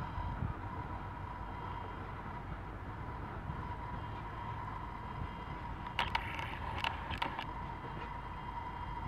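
Stainless-steel passenger train rolling away on the track: a steady low rumble with a thin, steady high tone above it. A quick cluster of sharp clicks comes about six to seven seconds in.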